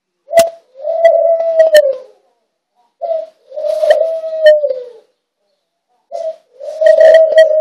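A pet dove cooing loudly, three calls about three seconds apart, each a short coo followed by a longer coo that falls slightly at its end. A sharp click comes with the first call.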